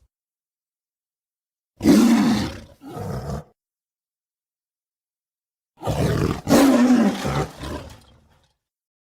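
Designed dinosaur roars for an albertosaurine tyrannosaur, built from animal recordings such as big cats and crocodiles. A loud roar about two seconds in, with a shorter, quieter follow-up, then after dead silence a longer roar that fades away.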